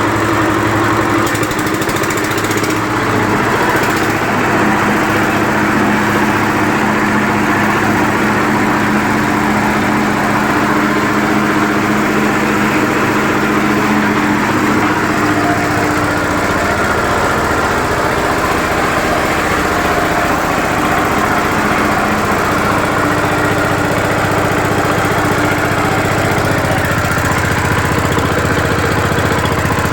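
Yanmar TF 85 single-cylinder diesel engine running a Meiji two-cylinder air compressor, a loud steady mechanical running sound whose tone shifts slightly about halfway through.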